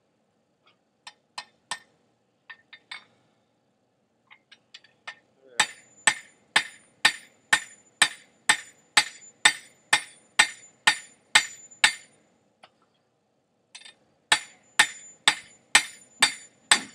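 Blacksmith's hammer striking hot steel bar stock on an anvil, each blow ringing. A few scattered light taps come first, then a steady run of blows about two a second. After a short pause near the end, the hammering starts again.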